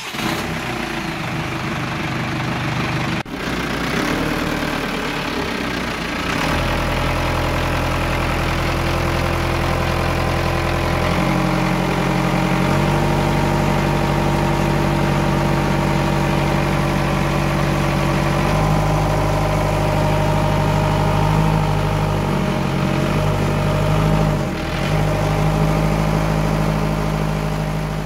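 Rebuilt Perkins M50 marine diesel running on a test stand during its first test run. It is uneven for the first few seconds, settles into a steady run about six seconds in, then changes speed several times. The mechanic judges it to be running smoothly.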